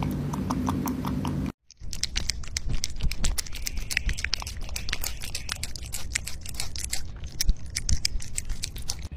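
Rabbit biting and chewing a crisp green apple close to the microphone: a quick, irregular stream of sharp crunching clicks. In the first second and a half, a rabbit nibbling soft fruit over a low hum, cut off by a brief silence.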